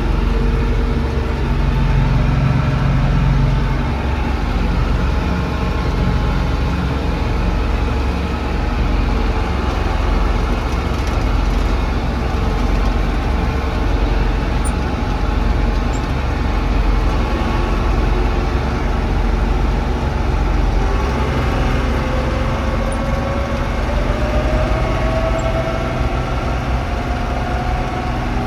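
John Deere 6600 combine's diesel engine running steadily with a deep rumble; about three-quarters of the way through, a whine starts to climb slowly in pitch.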